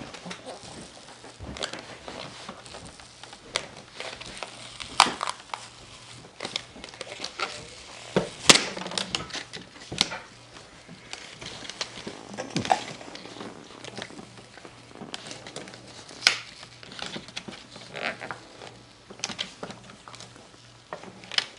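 Adhesive-backed rubbery palm-rest pad being pried and peeled off a Dell E6400 XFR rugged laptop: irregular crackling and tearing as the strong glue lets go, with a few sharp snaps.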